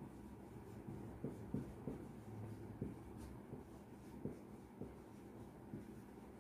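Marker pen writing on a whiteboard: faint, short strokes at an uneven pace as the words are written.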